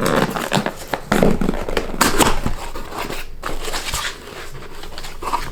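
Packaging being handled while lettered parts boxes are sorted through: a dense run of irregular small crackles and rustles, busiest in the first couple of seconds and quieter later on.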